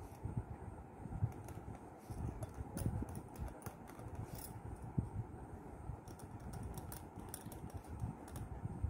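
Ballpoint pen writing on paper: faint scratching with scattered light ticks and taps as the words are written, over a steady low background noise.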